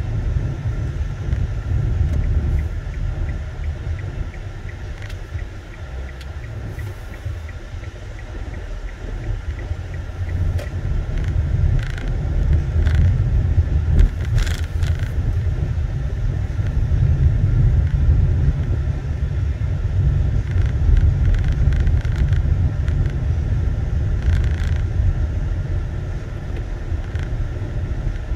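Car driving slowly along a street, heard from inside the cabin: a steady low rumble of road and engine noise, with a few light clicks and rattles.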